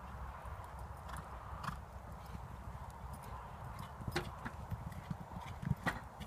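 Horse cantering on a sand arena surface and jumping a fence: muffled hoofbeats over a steady low rumble, with sharper knocks about four and six seconds in.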